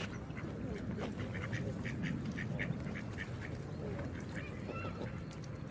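Geese calling in a run of short, quick honks, with a few longer bending calls near the end, over a steady rush of water.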